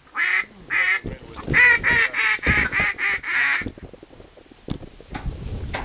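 A rapid series of about ten goose honks that comes faster after a second or so and stops about three and a half seconds in.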